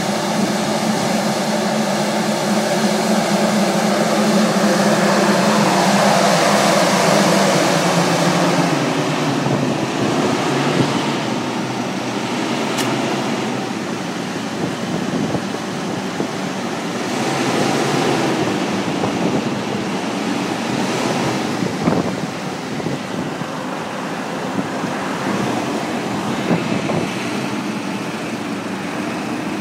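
Kubota tractor's diesel engine running while its towed C&N Bug Vac, an insect vacuum for sucking lygus bugs off crop rows, draws a loud rush of air. A steady engine hum holds through the first several seconds, then gives way to a broad rushing noise, with a single sharp knock about 22 seconds in.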